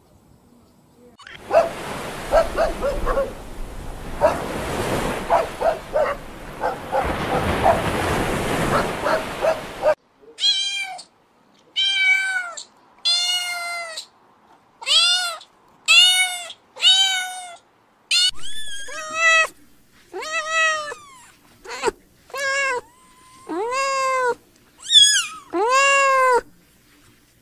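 Kittens meowing: a run of short, high, rising-and-falling mews about one a second, the later ones lower in pitch. Before them, for the first several seconds, a steady hiss with faint short squeaks.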